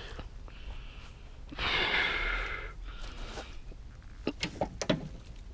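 A person's heavy exhale about a second and a half in, then a few light knocks near the end.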